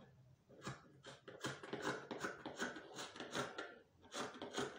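Scissors snipping through fabric, a run of short repeated cuts along a pattern line, with a brief pause shortly before the end.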